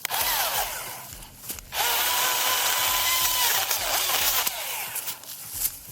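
Husqvarna 225i battery chainsaw: a burst of its electric whine that winds down with a falling pitch, then a second, steady run at full speed from about two seconds in, winding down again after a second and a half.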